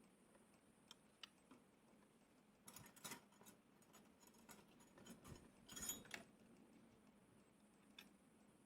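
Near silence, broken by a few faint clicks and small handling noises, with two short clusters about three and six seconds in.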